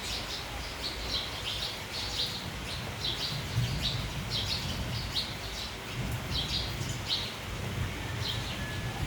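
A flock of sparrows chirping in quick, short calls over a steady hiss of rain. A low rumble comes up twice, about three and a half seconds in and again at about six seconds.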